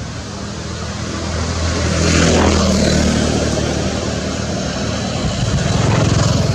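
A motor engine droning in the background, growing louder to a peak about two seconds in and swelling again near the end, as vehicles pass.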